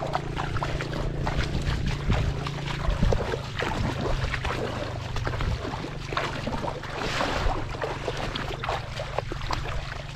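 Bare feet wading through shallow, muddy floodwater, splashing at each step, over a steady low hum.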